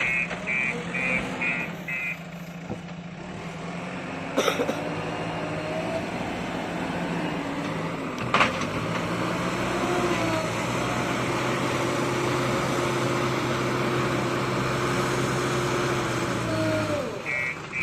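Bulldozer's diesel engine working steadily, its drone strengthening about ten seconds in and easing off near the end, with two sharp metallic knocks along the way. Its reversing alarm beeps briefly at the start and again near the end.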